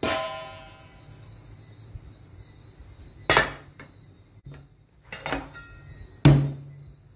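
Kitchen utensil knocks: a sharp metal clank at the start with a stainless-steel bowl ringing on for about a second. Then a Chinese cleaver is laid down on a wooden cutting board with a loud knock, followed by a smaller clink and a heavy wooden thud near the end.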